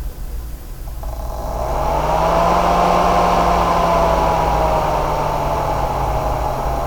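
Corsair GS600 power supply's fan spinning up about a second in, a whirring whine rising in pitch and loudness, then slowly easing off while staying loud over a steady low hum. This is the strange noise that made the owner return the unit as faulty.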